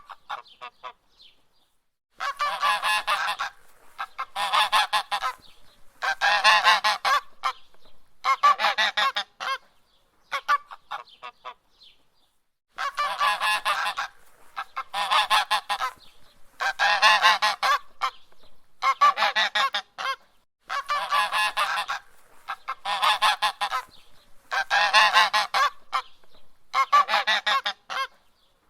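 Goose honking: clusters of quick, repeated honks about a second long, coming roughly every two seconds, with a short pause about eleven seconds in.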